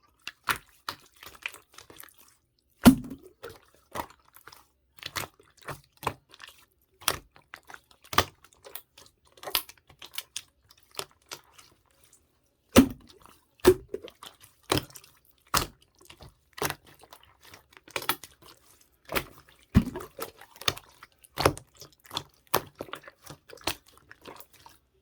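Slime being squeezed and pressed by hand, giving an irregular string of sharp, wet clicks and pops, some much louder than others.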